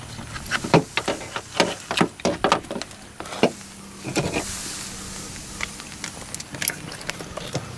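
Irregular clicks and knocks of hands handling a plastic reel and wires on a table. A steady low hum comes in about three and a half seconds in.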